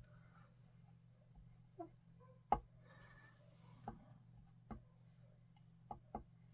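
Metal tweezers tapping and scraping on a craft mat as a small paper die-cut is dabbed through wet ink: about six light, irregular clicks, the loudest about two and a half seconds in, over a faint steady low hum.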